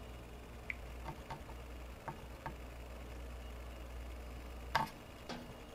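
Faint, scattered small clicks and taps as a circuit board is handled and a soldering iron tip is worked against its solder joints, with one sharper click about three-quarters of the way in. A low steady hum runs underneath.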